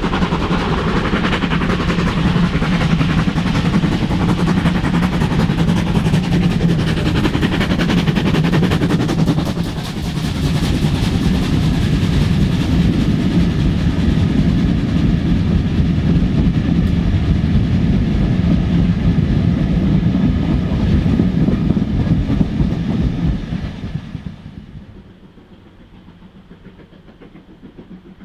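Steam-hauled train passing close by: wheels rumbling and clattering over the rails, then dying away about 24 seconds in.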